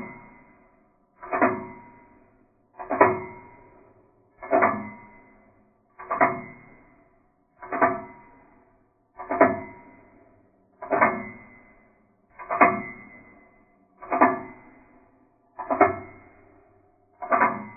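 A single ringing, pitched strike repeated evenly about every 1.6 seconds, each one dying away within about a second, like a slow bell or chime toll.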